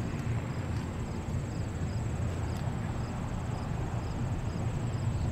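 Outdoor ambience: insects trilling steadily at a high pitch, with short chirps repeating two or three times a second over a constant low rumble.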